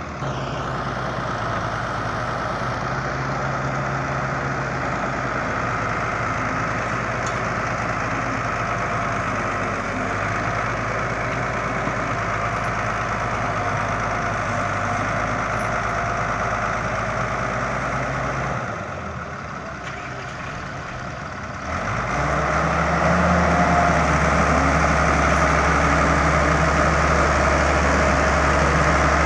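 Diesel engine of a wheeled Hitachi excavator running steadily. It dips about two-thirds of the way through, then revs up and holds louder at higher revs, under load while working to free a dump truck stuck in mud.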